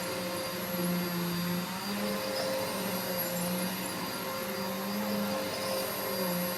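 Upright vacuum cleaner running steadily, its motor hum wavering slightly in pitch every second or so.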